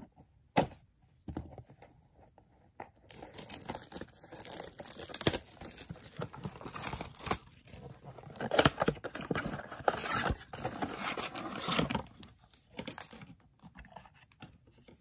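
A trading-card blaster box being ripped open by hand: its plastic wrap and cardboard tearing and crinkling. A few sharp clicks come first, then about nine seconds of continuous crackly tearing with several loud rips, dying down near the end.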